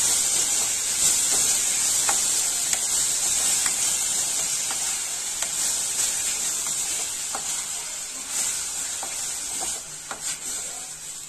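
Grated carrot sizzling as it fries in ghee in a stainless steel pan, with light scrapes and taps of a wooden spatula stirring it. The sizzle grows gradually quieter toward the end.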